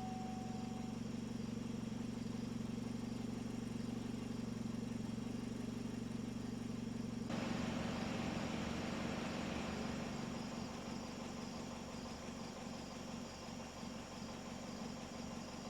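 Car engine running steadily with a low hum. About seven seconds in, a broad steady hiss abruptly joins it.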